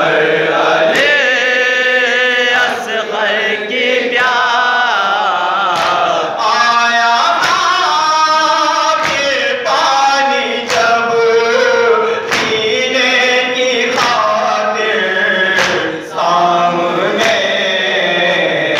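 Live noha: a man's voice chants a Shia lament over a microphone, with other men's voices joining in. Regular sharp slaps, about one every second and a half, keep time under the chant, as mourners beat their chests (matam).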